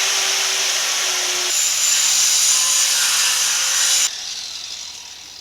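Power tool cutting metal, running steadily under load with a whine that shifts pitch partway through, then switched off about four seconds in and winding down.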